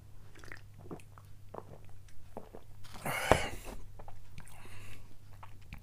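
A man drinking beer from a can: small gulps and mouth clicks, then about three seconds in a loud breathy exhale after the swallow, with a single knock as the can is set down on the table. A steady low hum runs underneath.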